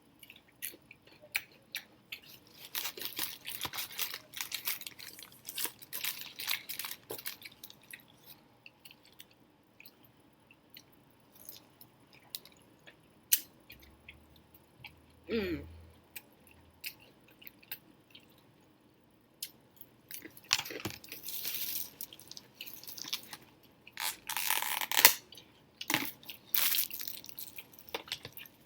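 A person biting into and chewing crispy fried boneless chicken close to the microphone. There are two spells of loud crunching, one a few seconds in and another near the end, with quieter chewing between.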